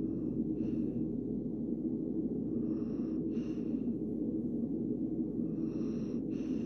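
A relaxed dog breathing through its nose with a faint whistling wheeze, short paired in-and-out breaths every few seconds, over a steady low hum.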